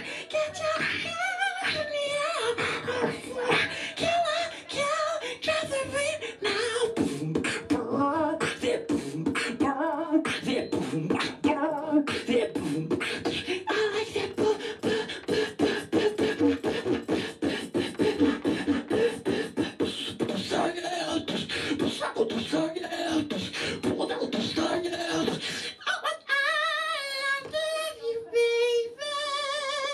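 Beatboxer performing live into a handheld microphone: a fast stream of mouth-made drum hits, kicks, snares and hi-hats, with a hummed, gliding melody over the beat. Near the end the low drum sounds drop out and a wavering, high-pitched vocal tone takes over.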